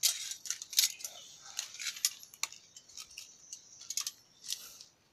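Small metal spring rat trap clinking and rattling in irregular clicks and scrapes against the rock as it is handled with a caught rat in its jaws.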